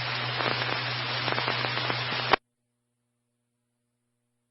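Amateur-radio transmission heard through a scanner: the open carrier gives steady hiss with a low hum and faint crackles after the speaker stops, then cuts off abruptly a little over two seconds in as the transmission drops and the squelch closes, leaving dead silence.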